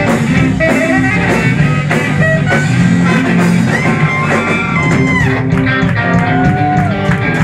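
Live ska band playing: saxophone holding long notes, some of them bending, over electric guitar, bass and drums with a steady beat.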